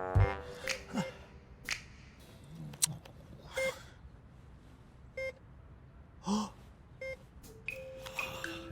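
Sparse cartoon sound effects: a low thump at the start, scattered sharp clicks, a few short blips and a couple of breathy, gasp-like sounds.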